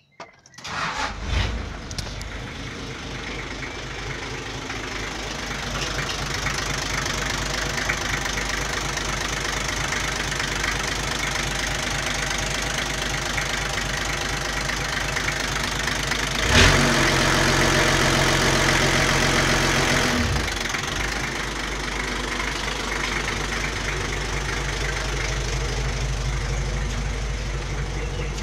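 Newly fitted Toyota 2H inline-six diesel in a Land Cruiser Troop Carrier cranking briefly and catching, then idling steadily. A little past the middle the engine speed is raised suddenly and held for about four seconds, then drops back to idle.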